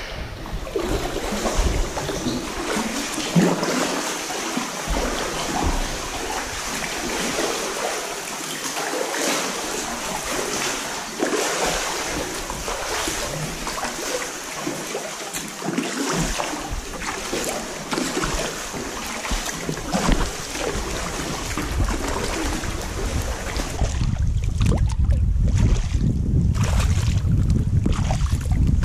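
Sea water sloshing, splashing and dripping against the rock walls of a sea cave as a sea kayak paddles through. About 24 seconds in, the splashing thins out to open water, with wind rumbling on the microphone and paddle strokes about once a second.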